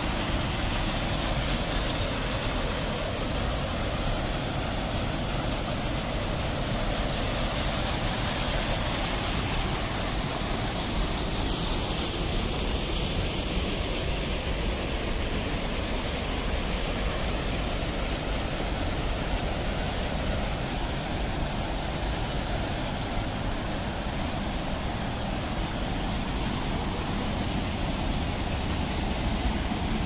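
Steady rush of fast-flowing stream water, an even hiss with no breaks.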